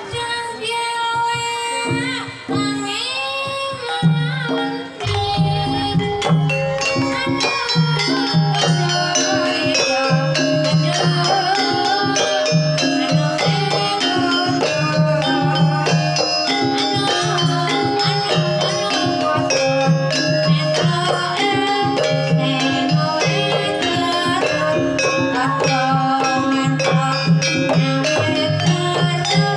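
Javanese gamelan playing a gending: a sinden's voice glides over metallophone tones at first, then about five seconds in the drum enters and the full ensemble plays on with a steady beat.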